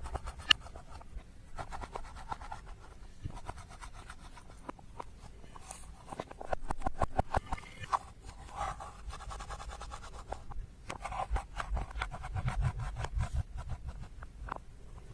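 Slime being squished and mixed by hand: a dense run of sticky clicks and squelches, heavier around the middle and again near the end.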